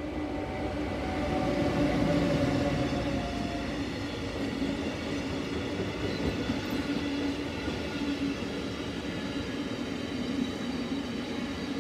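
Siemens Vectron electric locomotive passing close with a steady hum, loudest about two seconds in, followed by a long train of loaded container wagons rolling past on the rails with continuous wheel noise.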